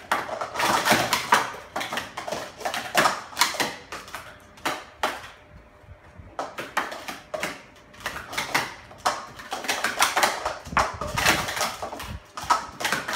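Plastic sport-stacking cups being rapidly upstacked and downstacked on stacking mats by two stackers at once: a busy clatter of light plastic clacks, with a short lull about five seconds in.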